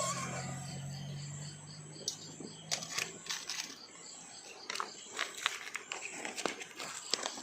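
Scattered sharp clicks and taps of utensils and dishes while food is served and eaten, starting about three seconds in, over a faint high chirp that repeats about three times a second.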